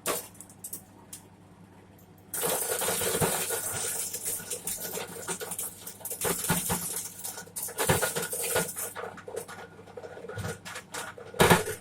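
Homemade corn sheller at work: about two seconds in, a dense rattle of kernels and cobs clattering against the machine's metal starts suddenly over its steady running hum. The rattle thins out to scattered clicks, with one loud knock near the end.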